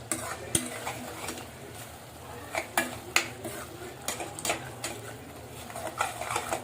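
A spoon stirring and scraping in a pan, clinking against the pan at irregular moments, while onion and ginger-garlic paste fries with a low sizzle underneath.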